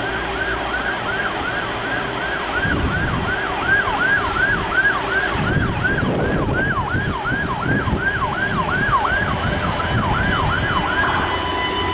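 Repeating electronic warning alarm: a quick falling chirp sounding about twice a second. It stops about eleven seconds in and a steady beep follows, over the low rumble of the standing diesel-electric trains.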